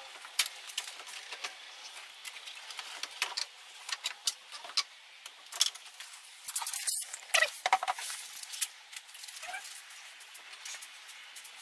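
Scattered sharp clicks, taps and light rattles of small parts and tools being handled, with a busier cluster of clatter a little past halfway.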